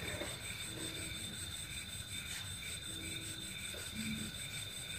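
Quiet night ambience: faint insect chirping repeating evenly about two or three times a second, over a steady high whine and a low hum.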